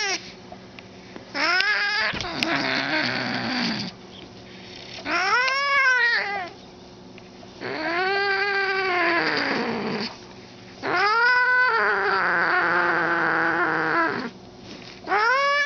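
Domestic cat yowling in a row of four long howls, each two to three seconds long, that rise and then fall in pitch, with a fifth starting at the very end. These are the angry yowls of a cat holding on to something with its mouth.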